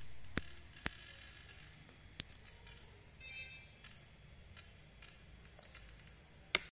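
Quiet room noise with a few light clicks scattered through it, a brief faint buzz a little past halfway, and a sharper click near the end just before the sound cuts off.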